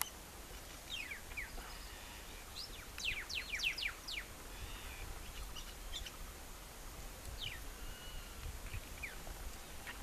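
Small birds chirping with quick, thin, downward-sliding calls: a few about a second in, a rapid run of them between about three and four seconds, and a couple more near the end. Beneath them runs a steady low rumble.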